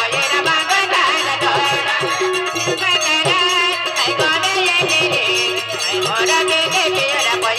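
Folk dance music with a steady, repeating beat and a wavering melody line over it.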